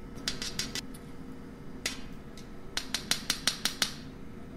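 A measuring spoon clicking and tapping against the rim of a can of baking cocoa while cocoa is scooped out. There are a few sharp clicks near the start, a single one around two seconds in, then a quick run of about six taps.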